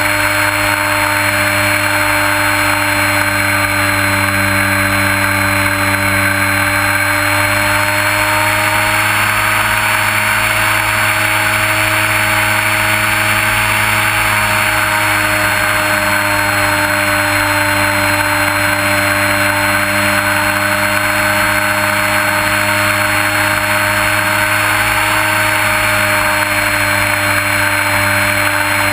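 Motor and propeller of a Trojan T-28 radio-controlled model airplane running steadily in flight, heard from a camera on board, with a thin high whine over the drone of the prop and a rush of air. The pitch wavers slightly and drops a little near the end as the throttle eases.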